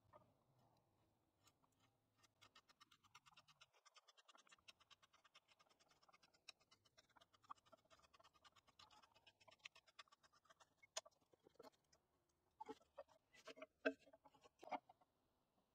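A T-handle hand auger boring into a round wooden pole, its bit scraping through the wood in a fast, faint run of clicks as it is turned. A few louder clicks come near the end.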